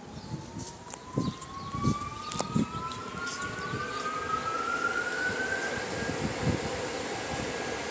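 A whine rising slowly and smoothly in pitch for about six seconds, over irregular low thumps.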